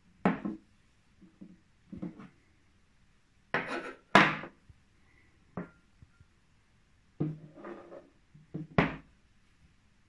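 Aluminium and resin T-1000 claw replicas being handled and set down on a wood-grain desk: irregular knocks and clatters, the loudest about four seconds in. One knock, about five and a half seconds in, leaves a short faint metallic ring.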